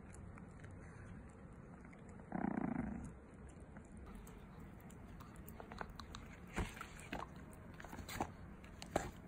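A short dog vocalization about two seconds in, then a Pomeranian biting and chewing a hard treat, with a series of sharp crunching clicks in the second half.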